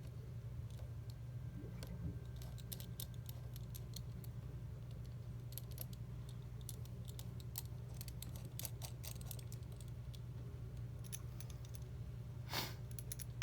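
Scattered small clicks and taps of tools and phone parts being handled during a smartphone repair, with a louder scraping rustle near the end, over a steady low hum.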